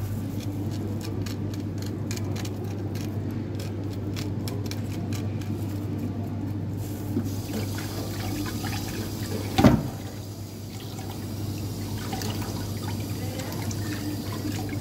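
Rapid scratchy clicks as the sea bream is worked over the sink. About halfway through, the tap starts running into a stainless steel sink over the fish and hands. One loud knock comes a couple of seconds later.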